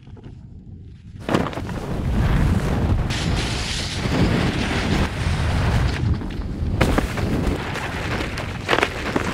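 Wind buffeting the microphone of a camera on a fast-moving skier, with skis hissing and scraping over snow. It is quieter for about the first second, while the skier is in the air, then comes a sudden thump of the landing and a loud, rumbling run of wind and snow noise with a few sharper hits.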